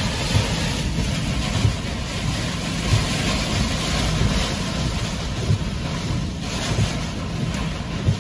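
Derecho wind and driving rain battering a car, heard from inside the cabin: a loud, steady rushing roar with a brief knock about every second and a quarter.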